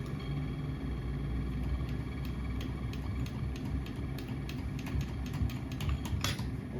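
DF64V single-dose coffee grinder's motor running with a steady low hum after the dense grinding dies down, with scattered light clicks of the last bean pieces passing through the burrs and a sharper click a little over six seconds in.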